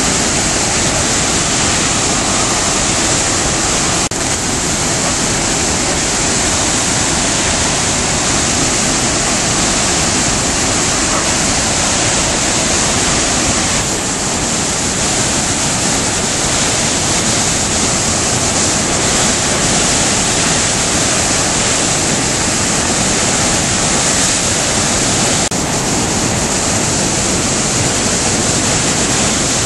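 Flood-swollen river rushing in whitewater over a dam, a loud steady rush of water. Brief dips come at about 4, 14 and 25 seconds.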